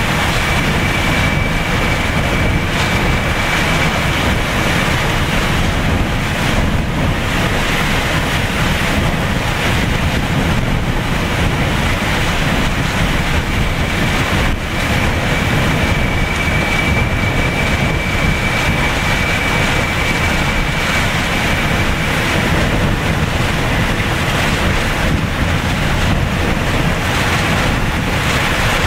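Hurricane winds blowing hard and steadily, with rain in the gusts and wind buffeting the microphone. A thin high whistle sounds for a few seconds at the start and again in the middle.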